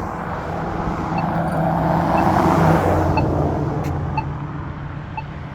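A motor vehicle passes at the intersection, its noise swelling to a peak mid-way and fading, while an accessible pedestrian push button's locator tone beeps about once a second.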